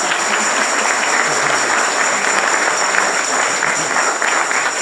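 Audience applauding: loud, dense, steady clapping.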